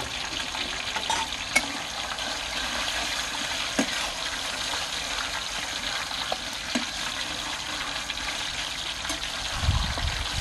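Chicken pieces sizzling in a frying pan as they are stir-fried, with a metal spatula scraping through them and clicking sharply against the pan a few times.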